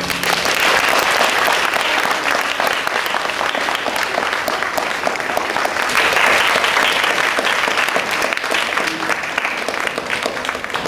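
An audience applauding: many people clapping in a dense, steady patter that breaks out suddenly and keeps going.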